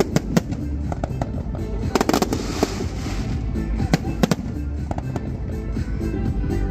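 Aerial firework shells bursting in a display: repeated sharp bangs at uneven intervals, with a spell of hissing about two to three seconds in. Music plays underneath.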